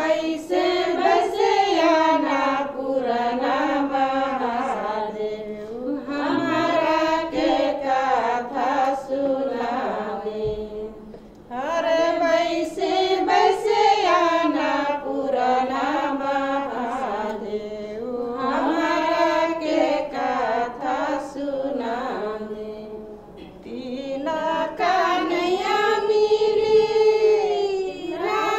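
Group of Tharu women singing a Jitiya festival folk song together, in long rising and falling phrases with brief pauses for breath about a third and four-fifths of the way through.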